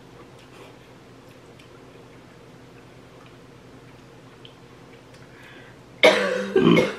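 Faint chewing and small clicks of eating, then about six seconds in a loud, short cough in two bursts, the throat catching on the heat of very spicy noodles.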